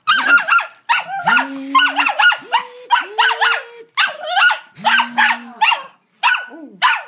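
A small puppy barking at an upright vacuum cleaner: rapid bursts of sharp, high yaps, with a few held, lower growls in between.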